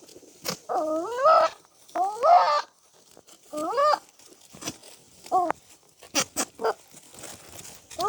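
Goat bleating: a run of separate wavering calls, about four in the first four seconds, then shorter calls and a few sharp clicks.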